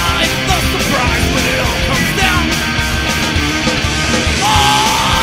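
Studio recording of a street punk band playing fast and loud, with distorted electric guitars and a pounding drum beat. A note is held near the end.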